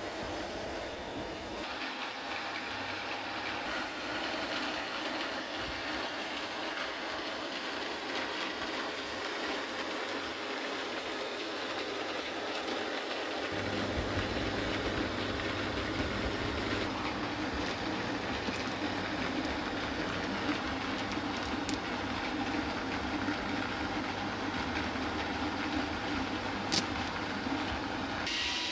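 Steady mechanical running noise with a rattle in it. It changes character about two seconds in, and a deeper low rumble joins about fourteen seconds in.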